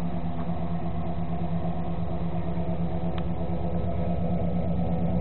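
A 1987 Chevrolet pickup's 350 small-block V8 idling steadily through a 3-inch dual exhaust with Flowmaster mufflers.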